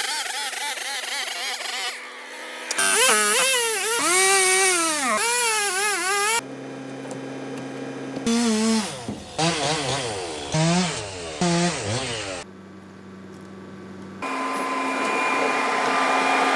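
Chainsaw cutting firewood rounds: the engine's pitch repeatedly sags under load and climbs again, in several short spliced clips that start and stop abruptly, with quieter steady engine stretches between them.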